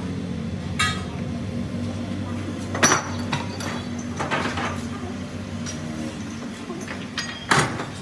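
Metal tools and motor parts clinking and knocking against each other in a handful of sharp strikes, the loudest about three seconds in and near the end, over a steady low hum.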